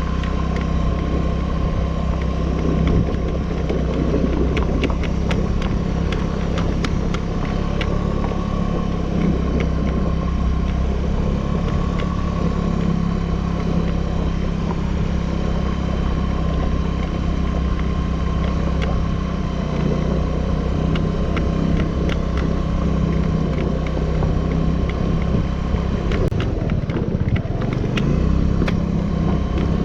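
Suzuki Burgman 200 scooter's engine running steadily under way on a bumpy forestry road, with scattered clicks and rattles, thickest around four to eight seconds in and again near the end.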